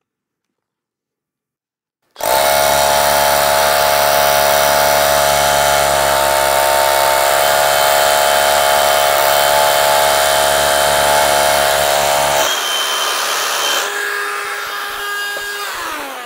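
DeWalt 20V SDS rotary hammer with its attached dust extractor drilling a small hole into a concrete block for a 1/4-inch Tapcon, while the extractor vacuums the dust out of the hole. It starts about two seconds in, runs loud and steady for about ten seconds, then lets off and winds down with a falling whine near the end.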